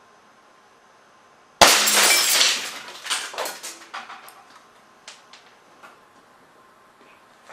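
Fire-extinguisher-tank air cannon with a .410 barrel fired at 350 psi with a load of steel BBs: a sudden loud blast about a second and a half in. It is followed by clattering and scattered clicks and rattles that die away over the next few seconds.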